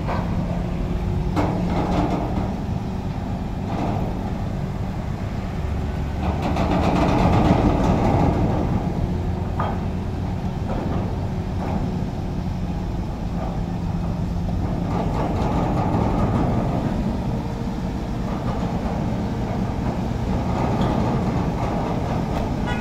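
Heavy diesel engines of a truck crane and a container truck running steadily, with a few sharp knocks in the first half and a swell in engine noise partway through.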